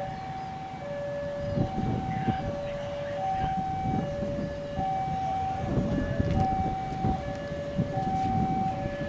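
Railway level-crossing alarm sounding its electronic two-tone warning, a low and a higher tone taking turns about every second, while a passenger coach rolls past on the track during shunting with irregular low rumbles of its wheels.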